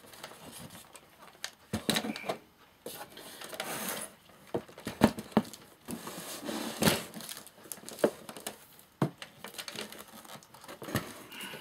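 Irregular small clicks, taps and light rattles of amplifier parts and tools being handled on a workbench, with a few sharper knocks.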